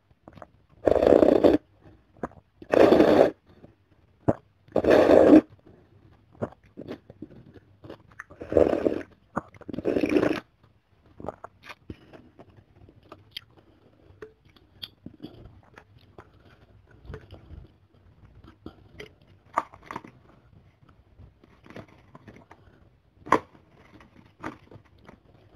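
Close-miked eating of chicken soto: five loud slurps of rice-vermicelli noodles in about the first ten seconds. Then quieter chewing with scattered small clicks of a fork and spoon against the bowl.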